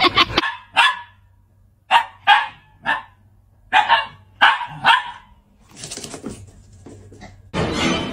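Dog barking: short single barks, about nine spread over the first five seconds. A fainter hiss follows, and a louder steady noise starts near the end.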